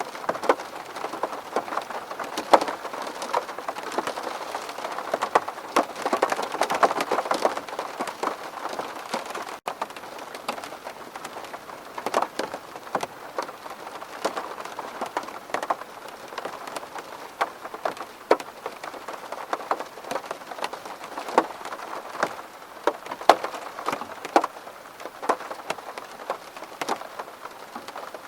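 Steady rain falling on a window pane: a constant patter with many separate drops tapping sharply against the glass. The sound drops out for an instant about ten seconds in.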